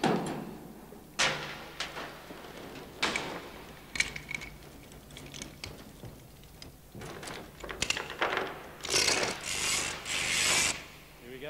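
Hand chain hoist (chain block) being worked: irregular metallic clanks and ratchet clicks, with a longer rattle of chain near the end.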